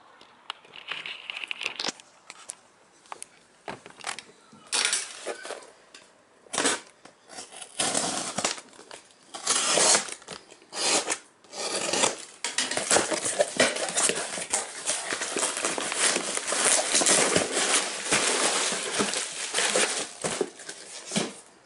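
A cardboard parcel being torn open by hand: packing tape and cardboard ripping and plastic wrapping crinkling, in scattered bursts at first, then a dense, unbroken crackle over the second half.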